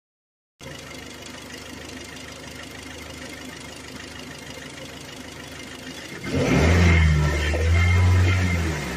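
Kia Sportage's G4KD four-cylinder petrol engine idling, then revved twice about six seconds in before falling back toward idle. It carries a foreign knock that shows when warming up and above 2000 rpm, which the owner takes most likely for piston slap: the piston skirt knocking on the cylinder wall.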